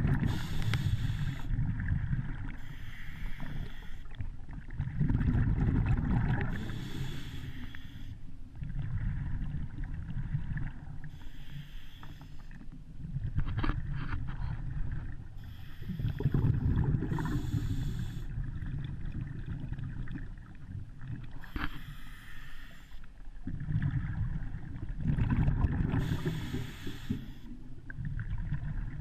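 Muffled underwater rumble of water moving around a submerged camera, swelling and fading every few seconds, with short hissing bursts now and then.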